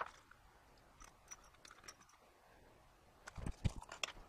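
Faint clicks and knocks of small metal tools being handled, with a quick cluster of sharper knocks about three and a half seconds in.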